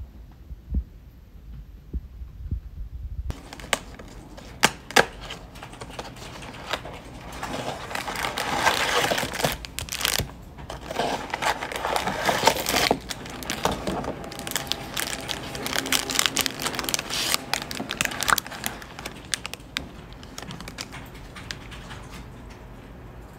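A paper gift bag and a clear plastic cookie bag rustling and crinkling as they are handled, with many small crackles. It starts about three seconds in and is loudest in the middle.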